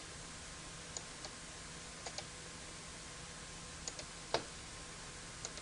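Faint computer mouse clicks, about seven scattered single clicks, two of them close together about two seconds in and the loudest about four and a half seconds in, over a faint steady room hum.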